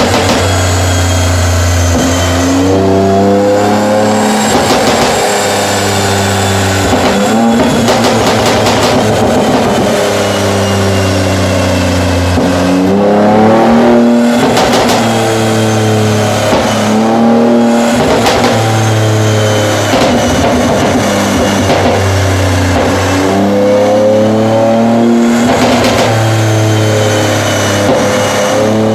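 Chevrolet Colorado's 3.6-litre V6, with tuned intake and modified exhaust, running hard on a chassis dynamometer: it revs up and drops back several times, with bursts of exhaust crackling and popping as the revs fall, from its pops-and-bangs ("popcorn") tune.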